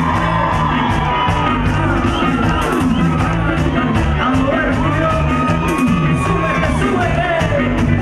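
Live cuarteto band playing: singing over a steady beat with a repeating bass line and regular cymbal strikes.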